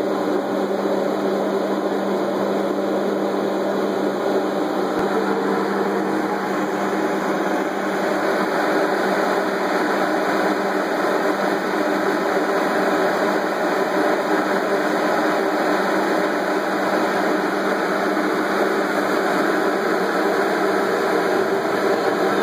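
Bombardier ALP-45DP locomotive standing still with its onboard equipment running in a steady mechanical drone. A low hum in it fades out about seven seconds in.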